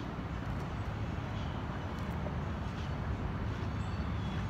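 Steady low rumble of outdoor background noise, with a few faint high ticks.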